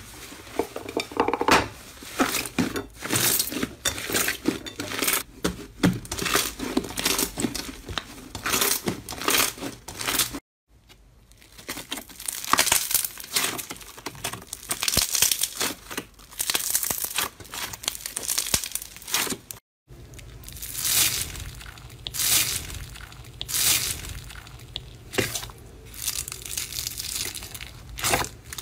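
Hands squeezing, stretching and poking slime: irregular sticky crackles, pops and squelches. Two brief gaps of silence split it into three stretches, and in the last one foam beads are pressed into the slime.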